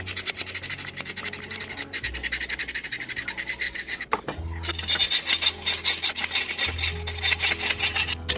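Hand file scraping back and forth on the rusty steel of an antique monkey wrench, quick strokes taking off rust, in two bouts with a short pause about four seconds in.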